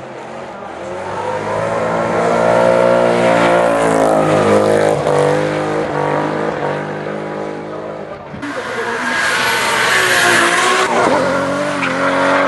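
Drift car sliding sideways through a bend, its engine revving high with the pitch rising and falling, mixed with tyre squeal. A second loud pass starts about eight seconds in.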